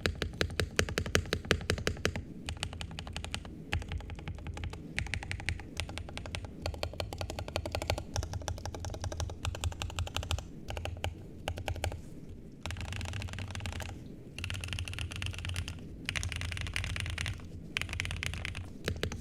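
Typing on a 60% mechanical keyboard with lubed Durock POM linear switches, a POM plate and PBT keycaps: quick runs of keystrokes. About two-thirds of the way through, the typing turns into dense, nearly continuous flurries broken by short pauses.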